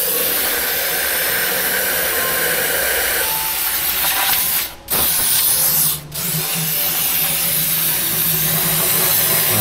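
Steady, loud hissing of a spray jet cleaning engine parts, with a low hum beneath it. The spray stops briefly twice near the middle, like a trigger let go and pressed again.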